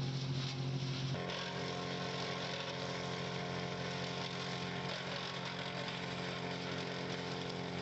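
Chainsaw engine running steadily, its engine note shifting to a different pitch about a second in and then holding.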